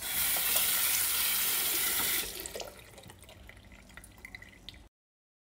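Kitchen tap running onto a peeled boiled egg and into a stainless steel sink to rinse off shell fragments, for about two seconds before it is turned off. A few faint drips and small taps follow, then the sound cuts out near the end.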